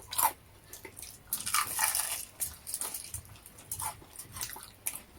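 Close-up eating sounds: irregular bites and crunchy chewing of crispy fried food.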